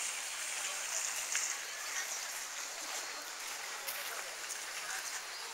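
Outdoor ambience: a steady hiss with faint voices of people nearby and a few light clicks.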